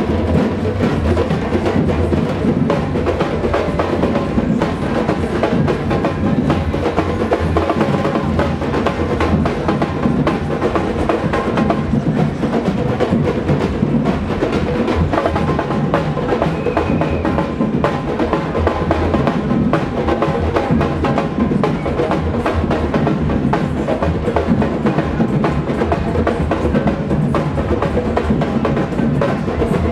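A large street drum band playing tall standing drums together, some struck with sticks, in a dense, steady percussion rhythm that does not let up.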